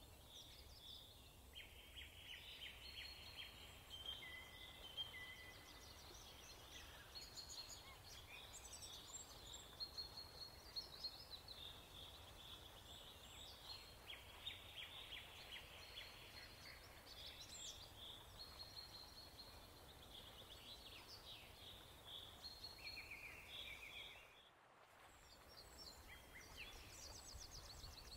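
Faint birdsong: many short chirps, trills and whistles from several birds, broken by a brief gap near the end.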